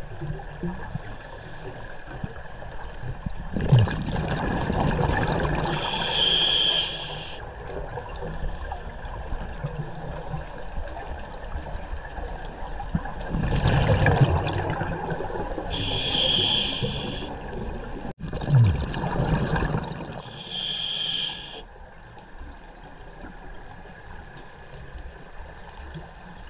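Scuba diver breathing through a regulator underwater, three breaths: each a bubbling rumble of exhaled air followed by a short hiss of the regulator on the inhale.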